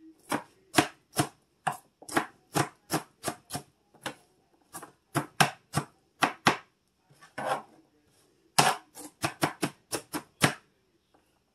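Chef's knife dicing an onion on a plastic cutting board: a string of sharp knocks of the blade against the board, about two to three a second in short runs with brief pauses. The knocking stops about a second before the end.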